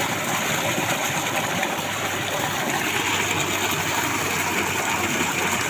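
Water gushing from an irrigation pump's outlet pipe into a concrete basin and splashing over its rim, with the steady hum of the pump running underneath.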